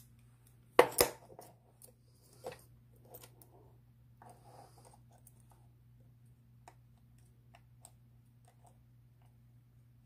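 Small metal clicks and taps from handling an opened 1902 Miller six-lever brass padlock and working its levers with a pick: two sharp clicks about a second in, another at about two and a half seconds, then faint scattered ticks and rustling. A steady low hum runs underneath.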